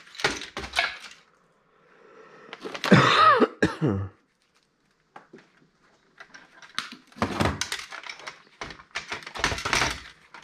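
Plastic and metal parts of a MICROS touchscreen POS terminal knocking and clattering as it is handled and taken apart, in two spells of short clicks and knocks. About three seconds in there is a louder short sound with a bending pitch.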